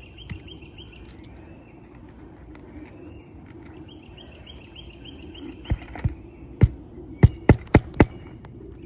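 Hammer driving roofing nails into asphalt shingles: a pause of about five seconds with only faint, rapid chirping in the background, then about eight sharp nail strikes in the last three seconds, speeding up toward the end.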